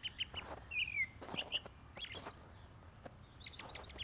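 Songbird singing: a quick run of chirps followed by a single falling slurred note, the phrase coming twice, with a few soft clicks in between.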